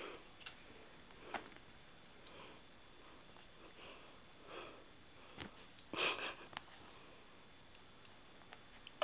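A person sniffing through the nose close to the microphone, five or six short sniffs spread out, the loudest about six seconds in, with a couple of faint clicks.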